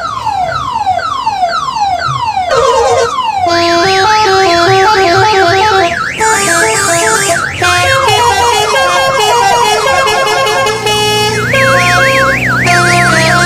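Telolet horn on a tourist bus, a set of electric multi-tone horns, playing a run of repeated falling whoops, then stepped melodic tunes and fast warbling trills. A low steady hum joins about eleven seconds in.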